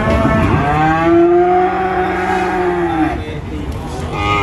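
A young calf mooing: one long call of about three seconds that rises at the start, holds steady and falls away at the end.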